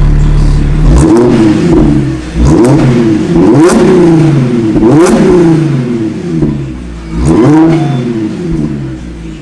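Audi S5 (B8.5, supercharged 3.0 V6) idling through a freshly installed AWE Touring Edition cat-back exhaust, blipped to quick revs about five times, each rev climbing and dropping back to idle.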